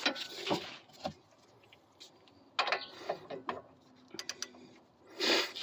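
Hand tools working on a car's front suspension nuts: a ratchet wrench clicking in short runs, with sharp metal clanks of wrench and socket.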